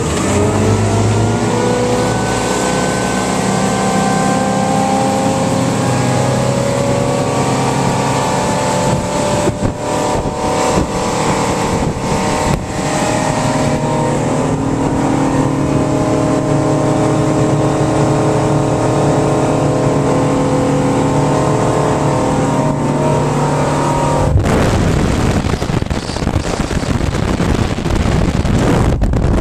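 2004 Maxum 24 SC's 350 V8 engine accelerating, its pitch rising over the first couple of seconds as the boat is brought up to speed, then running steadily at speed. About 24 seconds in the engine tone gives way to a steady rush of wind and water.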